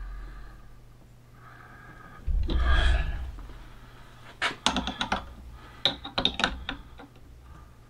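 Steel wrenches clicking and clinking against the brass fittings of an oxy-acetylene torch as flashback arrestors are tightened on. A duller thump of handling comes about two and a half seconds in, and a quick run of sharp metal ticks follows in the second half.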